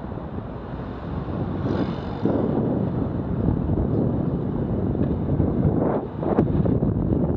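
Wind rumbling and buffeting on a bicycle-mounted action camera's microphone while riding in traffic, getting louder about two seconds in, with a brief sharp sound a little after six seconds.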